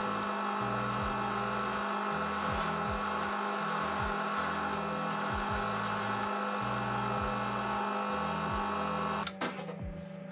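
Small benchtop metal lathe running steadily, its motor and gearing whining, while a carbide-insert tool turns a conical point on a steel rod. The sound cuts off abruptly a little past nine seconds in, followed by a few light metallic clicks.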